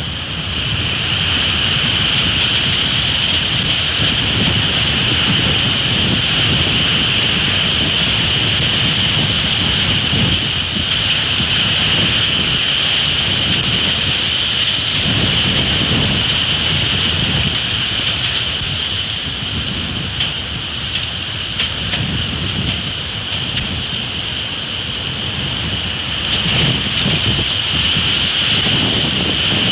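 Strong, gusty wind buffeting an outdoor microphone: low surges that come and go every second or two over a steady hiss.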